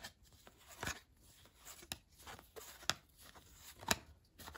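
Cardboard trading cards being flipped through by hand, each card snapping off the stack with a sharp flick about once a second, four times, with faint paper rustling between.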